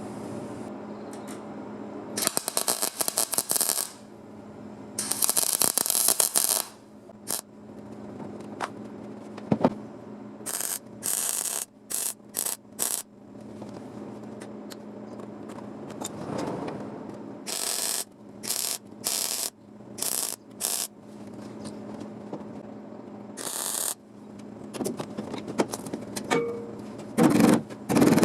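Short bursts of crackling hiss from a welder laying a series of tack welds on sheet-metal patch panels, each burst lasting from a moment to about two seconds, over a steady low hum.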